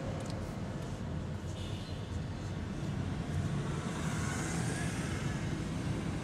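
Steady engine and road rumble inside a moving car's cabin, with a brief hiss about four seconds in.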